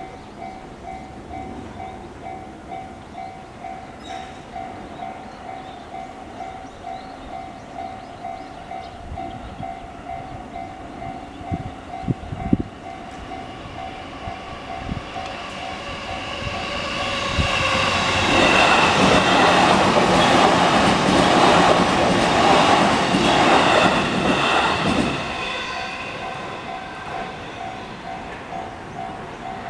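Japanese level-crossing alarm, the slightly high-pitched JR standard electronic bell, dinging about twice a second. About seventeen seconds in, a JR Nanbu Line train passes over the crossing and drowns the bell for several seconds, with a few sharp knocks shortly before it; the bell is heard again near the end.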